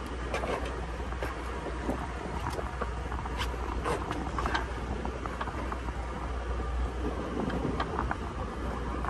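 Low steady drone of the sportfishing boat's engine running, under wind and sea noise, with scattered faint clicks.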